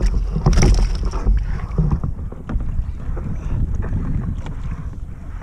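Wind buffeting the microphone over open sea, with scattered short knocks and clicks from gear being handled on the kayak. The rumble is heaviest in the first two seconds and eases after that.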